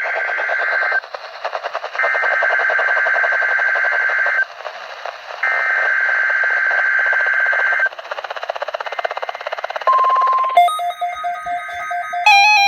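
Weather radio SAME header tones for a required weekly test: three bursts of screeching two-tone digital data, each about two and a half seconds long with a second's gap between them, over radio static. The first burst is already under way at the start and ends about a second in. Near the ten-second mark a brief steady beep sounds, then electronic music with stepping keyboard-like tones begins.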